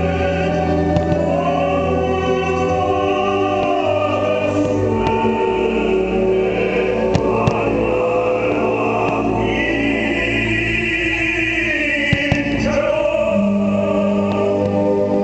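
Choral music with operatic singing over sustained orchestral chords.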